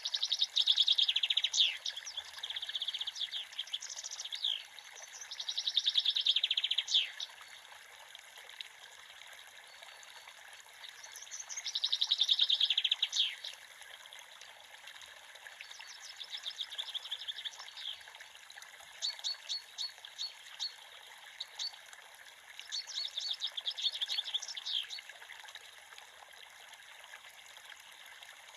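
A creek running steadily, with a songbird singing bursts of fast trills and sharp chirps over it, a phrase every few seconds, dying away in the last few seconds.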